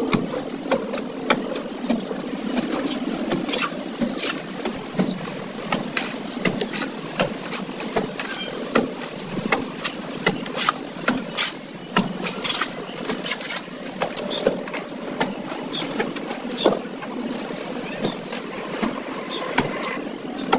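Steel plastering trowel scraping and clinking in a metal mortar pan and slapping sand-cement mortar onto a brick wall: irregular sharp clicks and scrapes, one to three a second, over a steady drone.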